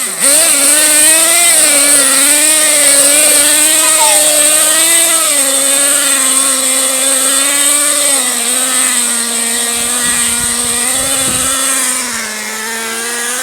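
Small two-stroke nitro engine of a 1/10-scale RC monster truck running at high revs. Its pitch wavers up and down as the throttle changes, then settles to a steadier, slightly lower note after about eight seconds, and grows a little quieter near the end.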